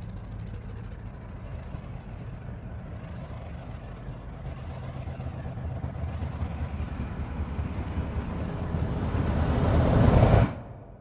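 A low rumbling noise over a steady low hum swells gradually louder and brighter for about ten seconds, then cuts off suddenly.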